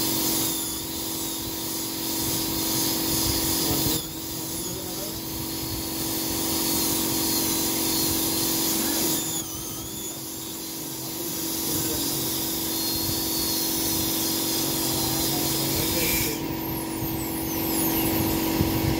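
Dental high-speed handpiece whining with a hiss of water spray as teeth are ground down for porcelain crowns, over a steady hum. The whine wavers in pitch and changes abruptly several times, with a gliding high whine near the end.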